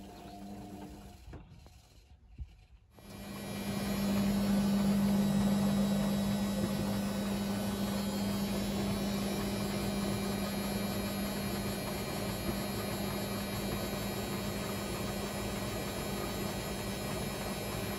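Atlant 45Y82 front-loading washing machine going into a spin: after a short pause and a click about two and a half seconds in, the motor speeds the drum up and runs with a loud, steady hum, on a cycle set to 400 rpm.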